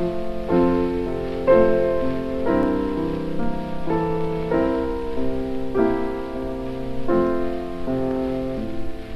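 Slow piano music, with a new chord or note struck about once a second and left to ring.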